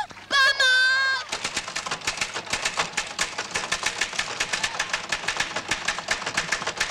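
A woman's high, wavering cry, under a second long. It is followed by a rapid, even mechanical clatter of about eight clicks a second, the typewriter-style sound of a caption being typed out letter by letter.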